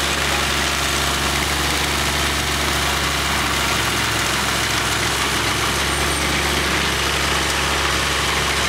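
Engine of a large remote-controlled stump grinder running steadily at an even pitch.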